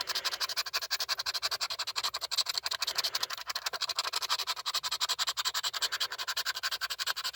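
Scratching off the coating of a scratch-off lottery ticket in rapid back-and-forth strokes, about nine or ten a second, with the coating coming off easily.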